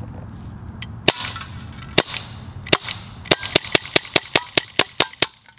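Airsoft Glock 19 replica pistol firing: three sharp single shots about a second apart, then a rapid string of about ten shots at roughly five a second.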